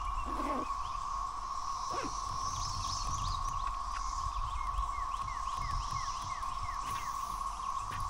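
Steady droning chorus of periodical cicadas from the creekside trees. A songbird calls over it, including a quick run of about six short falling chirps in the middle.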